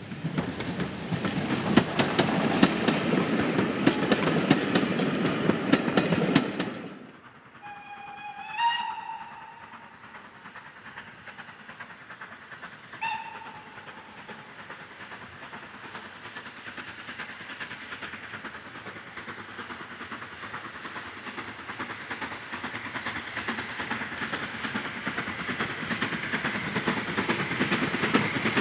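Saddle-tank steam locomotive 813 and its coaches passing close, wheels clicking over the rail joints; the sound cuts off suddenly about six seconds in. A steam whistle then sounds twice, a blast of about a second followed a few seconds later by a short pip. Another steam-hauled train approaches, its running and rail clicks growing steadily louder.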